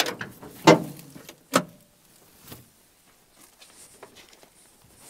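Three sharp metallic clunks in the first two seconds, the last with a short ring, then faint rustling, as a person works the door and headlight switch of an old bus to turn its lights on.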